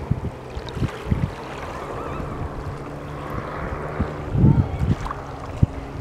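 Wind gusting against the microphone, strongest about four and a half seconds in, over a steady low hum and the faint wash of calm sea water.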